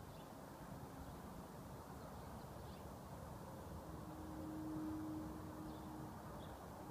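A low, steady horn-like tone held on one note for about two seconds, starting about four seconds in, over a constant outdoor background hum. This is the unexplained shofar-like sound that has been going on for over an hour.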